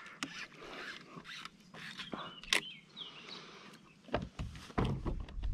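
Scattered light clicks and rustles of a fishing rod and line being handled as a small bass is lifted from the water into a kayak, with low bumps against the kayak from about four seconds in.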